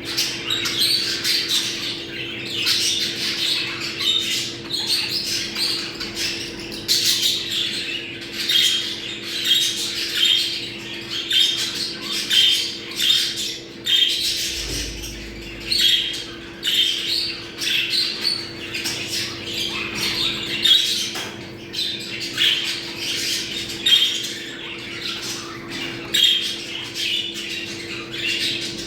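A group of budgerigars chattering and warbling without a break, a dense stream of short squawks and chirps: the breeding-season mating chatter of budgies. A faint steady hum runs underneath.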